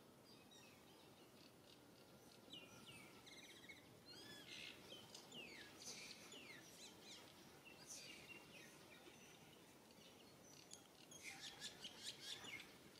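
Faint bird chirps and calls: short downward-sliding whistles and a quick trill, coming in bursts, busiest from about a fifth of the way in to halfway and again in a flurry near the end.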